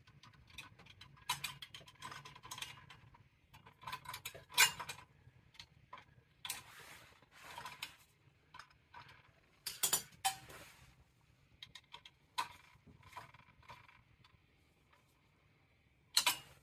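Small metal clicks and taps of needle-nose pliers and wire terminals against the sheet-metal aquastat relay housing as the wires are fitted back over its terminal screws. The taps come irregularly, the sharpest about four and a half and ten seconds in, with a quieter stretch near the end.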